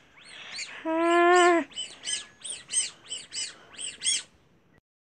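High chick-like peeping: short arching chirps, about three a second, that stop a little after four seconds in. About a second in, a steady held tone lasting under a second is the loudest sound.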